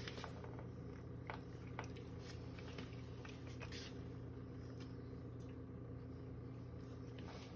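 Small dog chewing and licking a piece of fig: faint, scattered wet clicks and smacks, mostly in the first half, over a steady low hum.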